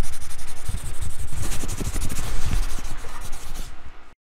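Intro logo-reveal sound effect: a dense, scratchy rubbing noise like brush strokes on paper, with scattered low thumps. It cuts off suddenly near the end.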